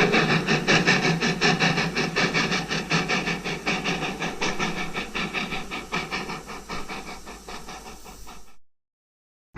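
A rapid, evenly repeating chugging with a hiss, about four to five beats a second, fading steadily away over about eight seconds before cutting off.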